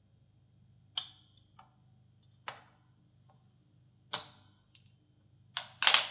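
Small metal spray-gun parts clicking and tapping against each other and the gun body as they are fitted by hand: about seven sharp clicks, some with a short metallic ring, the loudest two near the end.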